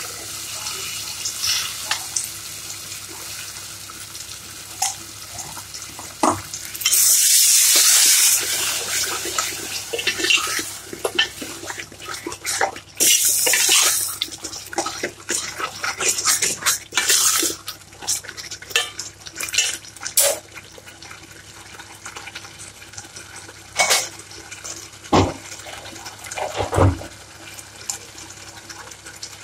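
Tamarind water poured into a steel pot of fried masala and stirred in with a long steel spoon, which clinks and scrapes against the pot. Two louder hissing rushes come about seven and thirteen seconds in.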